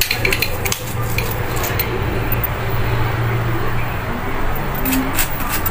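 Kitchen knife and dishes clinking as a peeled pineapple is cut into pieces, with sharp clicks near the start and again about five seconds in, over a steady low hum.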